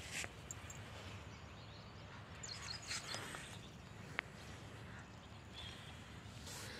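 Faint outdoor background noise with a few brief rustles and one sharp click about four seconds in.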